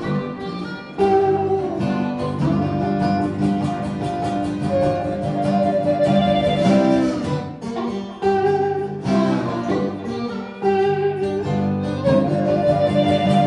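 Live acoustic blues, instrumental: a blues harmonica plays phrases of long held notes, some bent in pitch, over two guitars, one of them a tenor guitar, strumming and picking the accompaniment.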